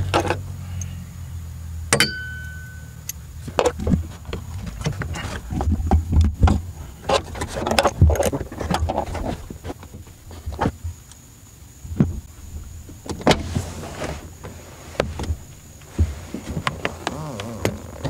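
Hand tools clicking, knocking and clinking against a small screw and a trim cover as the screw is taken out with a Torx driver. One metallic ping rings briefly about two seconds in.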